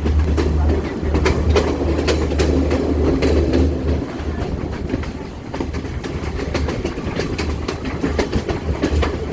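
Train running along the track: a steady low rumble with the clickety-clack of wheels over rail joints.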